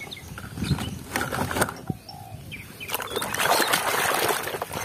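Muddy plastic toy trucks knocking and clattering together as a hand shifts them in a basket, then hands splashing and swishing through a tub of muddy water from about three seconds in.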